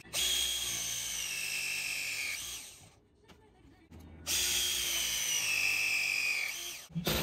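Battery-powered press tool crimping a press fitting onto copper pipe, twice. Each press is a motor whine of about two and a half seconds whose pitch sinks as the jaws close under load, with a near-silent gap of about a second between the two.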